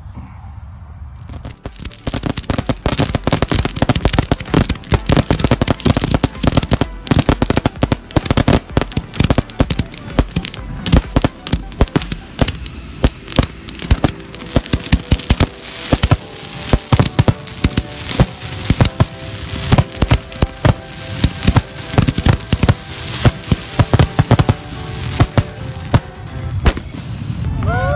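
Barrage of professional aerial firework shells bursting: dozens of sharp, loud reports in quick, irregular succession, starting about a second in.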